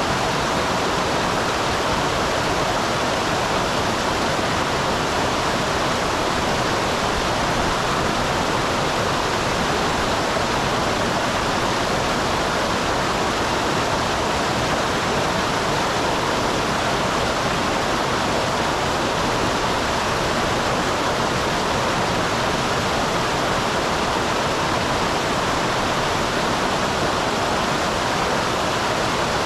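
Small waterfall on a mountain stream: water pouring and rushing steadily.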